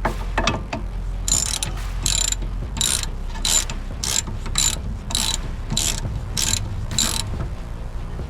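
Hand ratchet wrench worked back and forth on a bolt, a short burst of pawl clicking on each return swing, about one and a half swings a second, with a few quicker clicks at the start.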